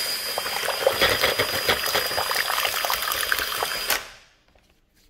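A Hilti drill with a paddle mixer stirs a bucket of thinned decorative coating at low speed, the liquid sloshing and slapping under a thin steady motor whine. The drill stops about four seconds in.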